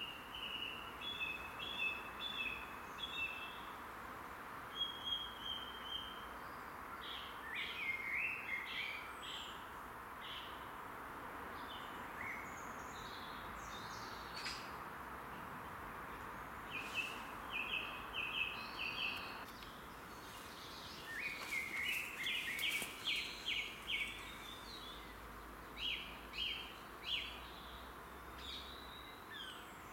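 Songbirds singing and calling, short runs of quick repeated high notes coming and going, busiest about two-thirds of the way through, over a steady background hiss of distant noise.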